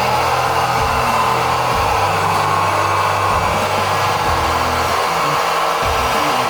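Hydraulic pump of a radio-controlled scale Hitachi 135 excavator running steadily with an airy whir while the model is worked, with low tones underneath that change pitch every second or so.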